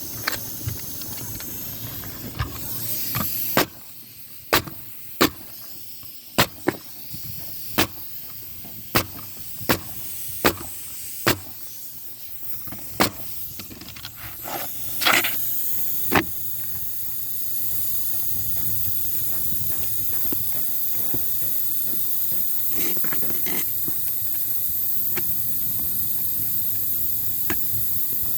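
Roofing work on the flashing around a plumbing vent pipe: about fifteen sharp knocks, roughly one a second, typical of nails being driven, over a steady hiss. The knocking stops about halfway through and only the hiss continues.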